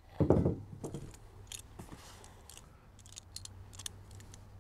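A dull thump about a quarter second in, then scattered light clicks and rustles of hardware and a cardboard box being handled.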